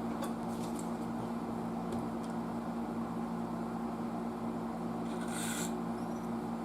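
Steady low electrical hum with a few faint clicks of handling at the bench, and a short brushing rub about five seconds in.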